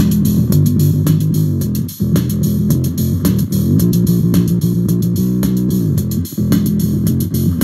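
Electric bass played through a Chunk Systems Brown Dog fuzz pedal and an OC2-style octaver, giving a thick, synth-like fuzz bass line over a drum loop. There is a short dip in loudness about six seconds in.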